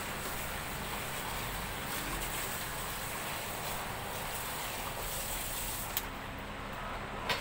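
Kitchen tap water running steadily into a stainless steel sink while something is rinsed under it; the flow is shut off about six seconds in, followed by a short knock near the end.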